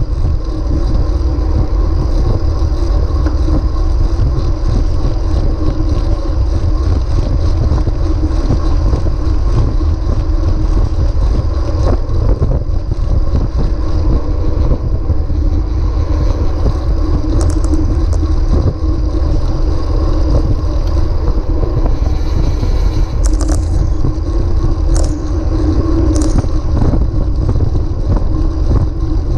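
Wind rushing over the microphone of a bike-mounted action camera as the bicycle rolls along the road, with a steady rumble and hum from the tyres. A few sharp clicks come in the second half.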